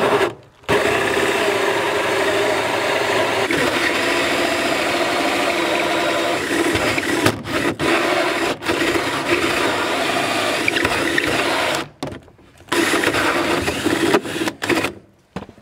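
An 18-volt cordless drill turning a hole saw through wooden wall boards. The drill runs steadily under load for about eleven seconds with two brief dips, stops for a moment, then runs again for about two seconds.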